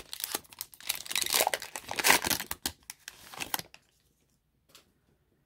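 A trading card pack's wrapper crinkling and tearing as it is pulled off the stack of cards, in quick scratchy rustles that stop about three and a half seconds in.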